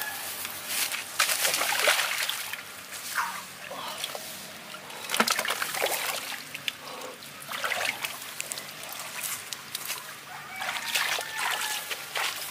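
Splashing and sloshing in a shallow muddy ditch as hands work through the water, coming in irregular bursts every few seconds.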